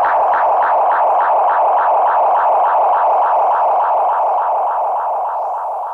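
A pulsing synthesized tone, about five pulses a second, run through echo and phaser effects that sweep faintly across it, slowly fading out near the end.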